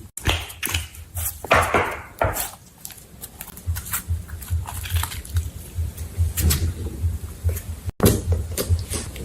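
Slime being squeezed and poked by hand, giving a run of irregular sticky clicks and crackles.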